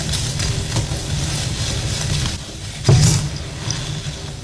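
Hands squeezing and crushing soft, crumbly clumps of packed white powder with sprinkles in a metal bowl: a continuous crunching, crumbling texture, with a louder crunch just before three seconds in.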